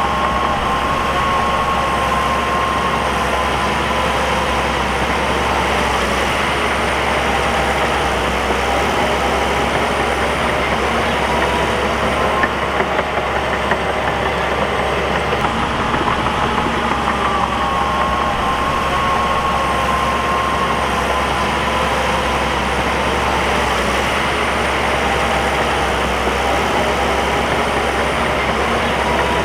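Bulldozer's diesel engine running steadily, with a whine that slowly rises and falls in pitch twice.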